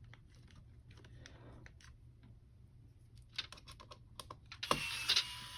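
Light clicking and tapping of small parts being handled during laptop disassembly. The clicks come quicker and louder near the end, and a steady faint whine starts with them.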